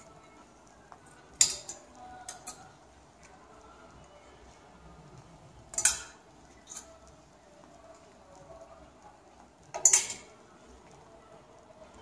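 Plastic clothes hangers clacking and sliding along a metal clothes rail as dresses are pushed aside, in a few sharp clicks: a cluster about a second and a half in, another around six seconds, and the loudest near ten seconds.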